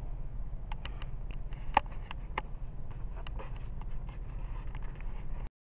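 Scattered clicks and taps of a phone camera being handled and turned around, over the steady low rumble of a car's interior. The sound cuts off abruptly near the end.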